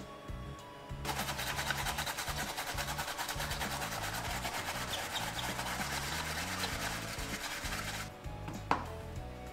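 Rapid rasping strokes of food being grated on a hand grater, starting about a second in and stopping about eight seconds in, followed by a single sharp click. Quiet background music plays throughout.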